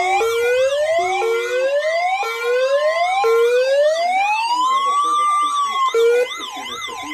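Electronic sirens sounding together: a wail that sweeps sharply upward about once a second over a faster yelp warbling up and down. Near the end a single slower rise and fall, then the sirens cut off suddenly about six seconds in.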